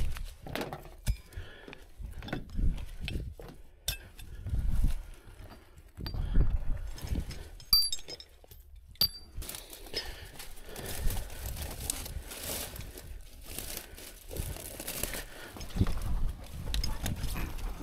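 Rustling and crackling of dry brush with scattered knocks, clinks and low thumps as gloved hands and gear work against the body of an overturned SUV, with a few short high clinks about halfway through.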